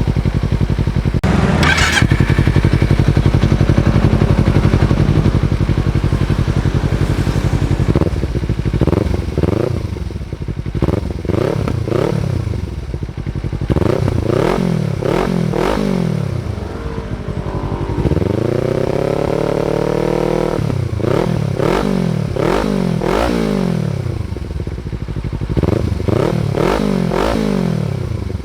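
Kawasaki Z300 parallel-twin engine running through a stock exhaust rebuilt with bypass internals: a steady idle, then a long series of short revs, pitch rising and falling with each throttle blip, with one longer held rev about two-thirds of the way through.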